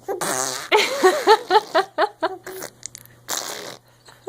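Young child blowing raspberries with her lips: fart-like sputters mixed with her voice, in a run of short bursts.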